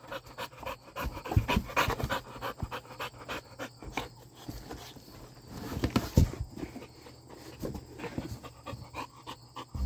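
A dog panting in quick, short breaths.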